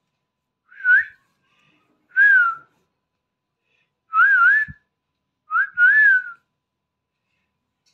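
A person whistling a short tune in four brief phrases, each with a pitch that wavers up and down.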